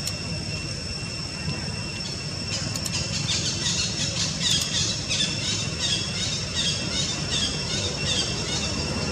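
Birds chirping over and over in quick short calls, starting a few seconds in, over a steady low rumble and a thin, steady high-pitched tone.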